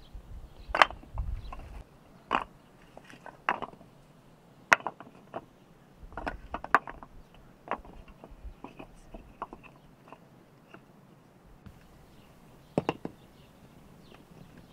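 Split firewood pieces knocking together as they are picked up off a pile and dropped into a sack: a string of sharp wooden clacks at uneven intervals, the loudest about a second in and another near the end.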